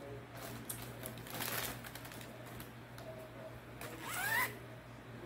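Rustling and crinkling as a long black case in a shiny plastic wrapper is handled and opened by hand, in several soft bursts, over a steady low hum.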